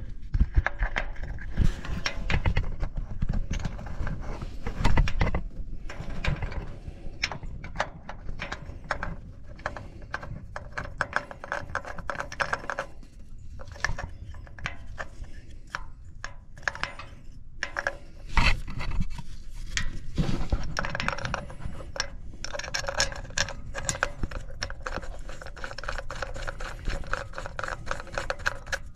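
Irregular small clicks, scrapes and rubbing of hands working metal parts in a cramped engine bay: fitting the new oil filter's cover and its screws.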